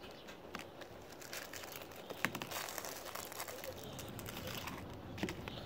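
Packaging being handled while a knife is unboxed: irregular crinkling and rustling with small clicks and taps, busiest around the middle.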